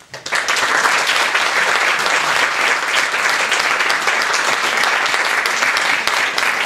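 Audience applauding, dense steady clapping that starts suddenly.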